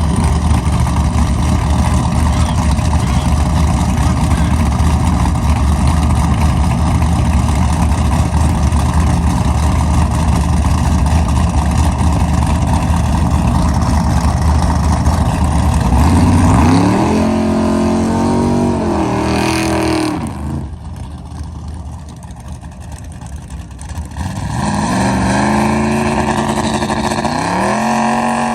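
Drag-race car engines: a loud, steady engine rumble, then about 16 seconds in a car launches and its revs climb in steps through the gear changes before cutting off. A few seconds later another launch climbs through its gears the same way.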